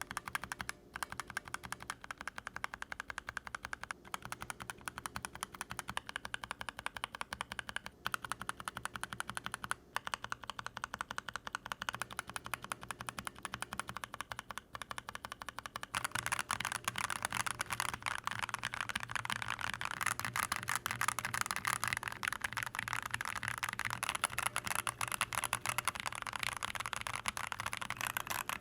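Continuous typing on a mechanical keyboard fitted with Drop Holy Panda X tactile switches, a steady stream of key clacks. About halfway through the typing becomes louder and brighter.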